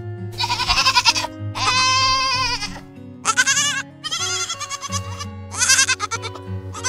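A young goat bleating repeatedly, about six quavering bleats one after another, over steady background music.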